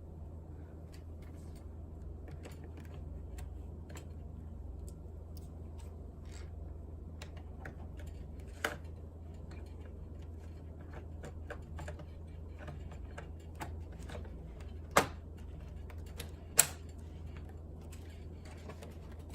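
Scattered light clicks and taps from handling a laptop, with three sharper clicks, one about halfway through and two close together near the end, over a steady low hum.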